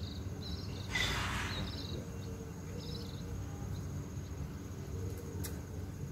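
Insect chirping in a handful of short, high chirps spread over the first three seconds, over a steady low rumble. A brief rush of noise about a second in is the loudest moment, and there is a sharp click near the end.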